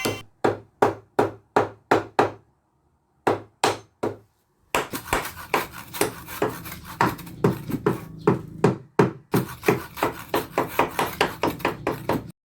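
Hammer blows on wood, struck again and again at about two to three a second. There is a short break after the first few blows, then a faster, steady run of strikes that stops shortly before the end.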